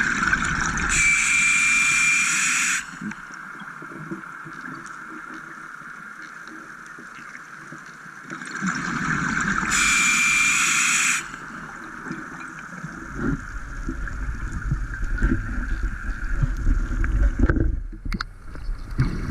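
Scuba diver breathing underwater through a regulator. Two inhalations about nine seconds apart, each a loud hiss with a thin whistle, each preceded by a gurgling rush of exhaled bubbles. A steady hum runs underneath, and a low rumbling sets in for the last few seconds.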